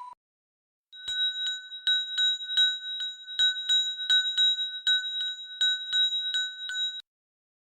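A bell ringing over and over, struck about three times a second for some six seconds, then cutting off suddenly.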